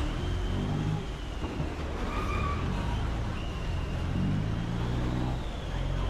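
Chao Phraya Express Boat's diesel engine running with a steady low drone, a faint wavering high whine above it.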